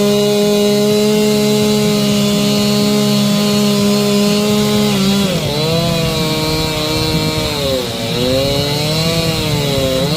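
Chainsaw engine running at high, steady revs, then its pitch drops and climbs back twice, as it does when the chain is loaded in a cut or the throttle is eased.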